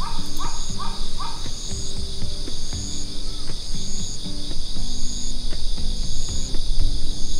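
Insects trilling steadily at dawn, with a higher chirp repeating about once a second, over background music with a slow low melody.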